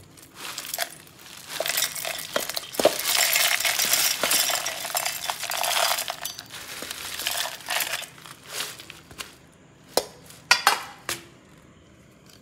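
Dry roasted whole spices (dried red chillies, cinnamon sticks, cardamom pods, peppercorns, star anise) poured and swept by hand from a steel plate into a stainless-steel mixer-grinder jar: a steady rattling clatter for several seconds, then a few sharp separate clinks near the end.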